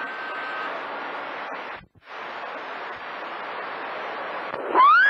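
CB radio receiver on channel 28 hissing with open-channel static from skip reception, cutting out briefly about two seconds in. Near the end a loud whistle-like tone slides up and then back down over the static.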